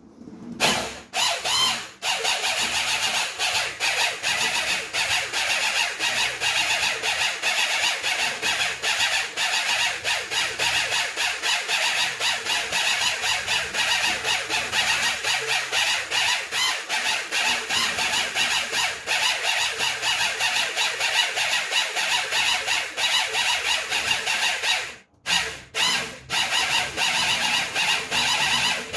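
Liquid detergent mixture being stirred to blend in the colouring: a continuous high squealing and churning that breaks off briefly about 25 seconds in and then resumes.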